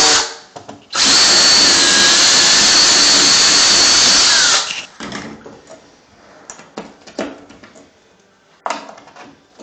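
Power drill with a small bit pre-drilling holes into the wall for a shelving bracket: a short run that ends just after the start, then a steady run of about three and a half seconds that stops suddenly. Light knocks and clicks follow.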